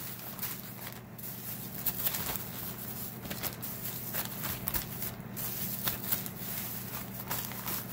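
Thin plastic bags of roasted bell peppers rustling and crinkling as they are handled and laid flat on a table, with scattered soft crackles and taps.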